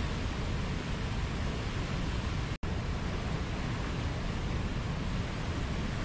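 Whitewater river rapids rushing, a steady dense roar of water. The sound cuts out for a split second about two and a half seconds in, then resumes unchanged.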